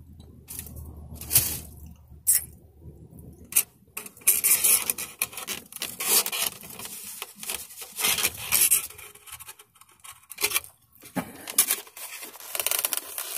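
Foam takeout box rubbing and scraping as it is handled close to the microphone, in irregular bursts.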